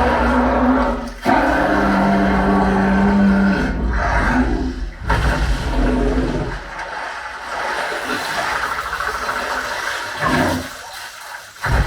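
Film soundtrack played through a Sonos Arc soundbar: dense rushing effects over deep bass, with a held low tone about two seconds in, dropping away briefly near the end.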